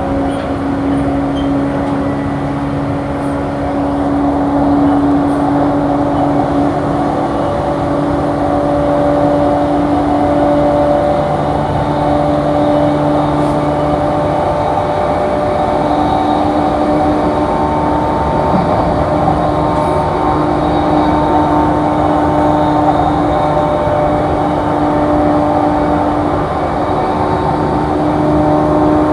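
Inside an E235-series electric train running at speed between stations: a steady rumble of wheels on rail under the traction motors' whine, which holds a few steady tones that climb slightly in pitch in the later part.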